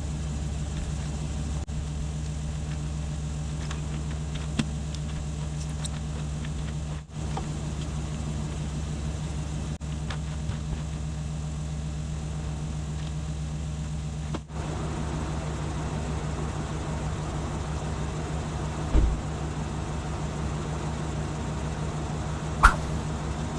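Pickup truck engine running steadily at a constant pitch, with a few brief breaks; this is likely the plow truck, a GMC Sierra 2500.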